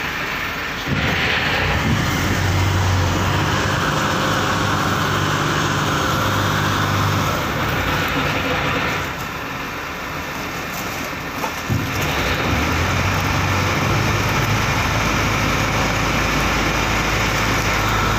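Pump boat (motorised banca) engine running with a steady low hum; it picks up about a second in, eases off around the middle for a few seconds, then picks up again as the boat manoeuvres beside the pier.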